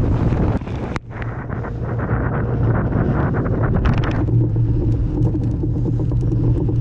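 Wind buffeting the microphone over the steady low drone of a fishing boat's engine, with an abrupt break about a second in.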